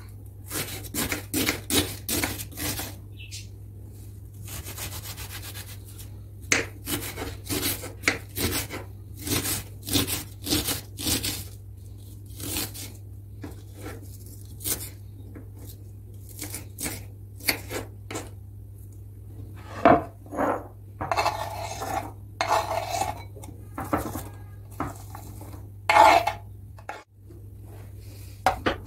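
Kitchen handling sounds: dishes and cutlery clinking and knocking in a long irregular series, with a few longer scrapes near the end, over a steady low hum.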